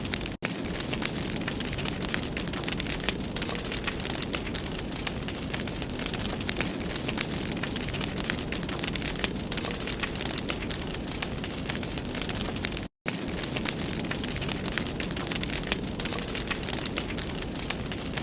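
Wood fire burning in a fireplace: a steady rush of flames with dense, continuous crackling and popping. The sound cuts out completely for an instant twice, just after the start and about two-thirds of the way through.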